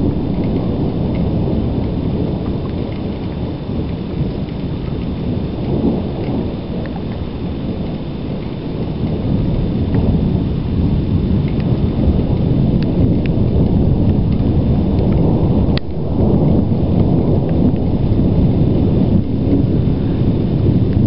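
Low, continuous rumbling thunder from an electrical storm, with a brief dip about three-quarters of the way through and a few faint sharp ticks.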